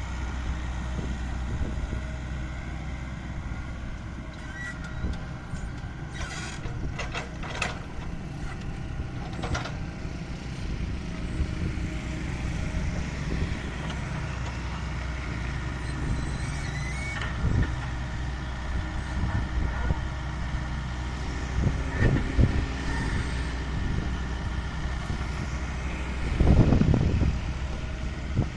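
Excavator's diesel engine running steadily, with a run of sharp knocks and clanks partway through and a louder surge near the end.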